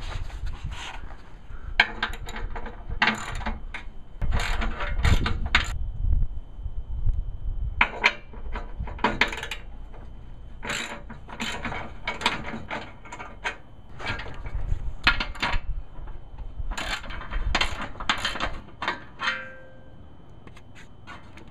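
Hand socket ratchet clicking in repeated short bursts, loosening the bolts that hold a factory front bumper.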